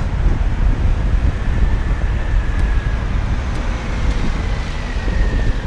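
Wind rumbling on the microphone of a moving bicycle's camera, over steady city traffic noise. A faint high whine runs through the second half.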